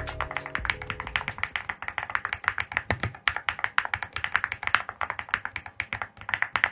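Fast typing on a mechanical keyboard fitted with a keycap set: a dense run of sharp clacking keystrokes, several a second, with a short lull near the end before a last flurry.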